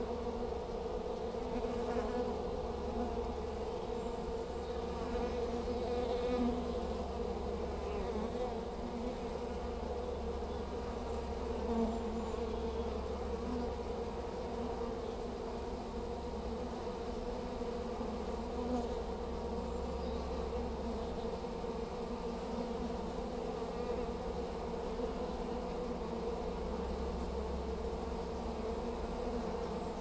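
Honey bees buzzing in a steady, dense hum at a hive entrance, many bees fanning and flying in and out as a newly hived swarm settles into its box.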